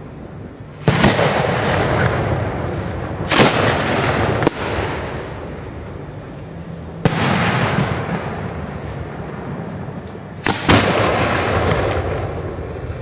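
Display fireworks going off: four loud booms, each trailing a rumbling echo that dies away over a couple of seconds, with two smaller bangs in between.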